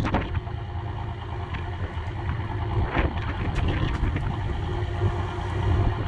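Fishing trawler's engine running steadily with a low rumble, with a few brief knocks and rustles from the catch and net on deck.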